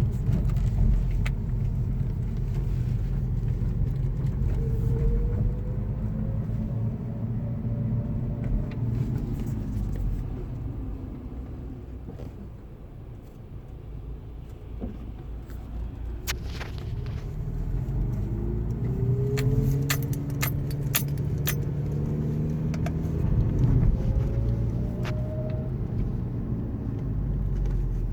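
A 2010 VW Scirocco 2.0 TSI with a DSG gearbox driving at low speed: steady engine and road rumble with a thin whine that rises in pitch three times as the car picks up speed in the low gears. This is the whine the owner gets only in first and second gear, cause unknown to him. A run of sharp metallic clicks and jingles comes about two-thirds of the way through.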